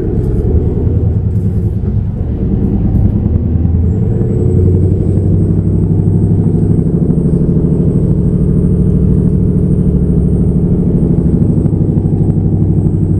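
Timber truck's diesel engine and road noise heard from inside the cab while driving, a steady low drone. A faint high whine comes in about four seconds in.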